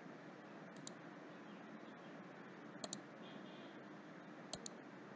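Computer mouse clicked three times, each click a quick pair of sharp snaps, over faint steady room hiss.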